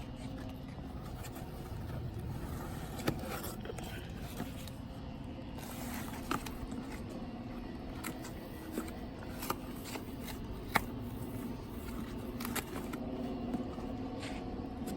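Light handling noises: scattered scrapes and a few sharp clicks over a steady low hum, as something is being taken out or handled.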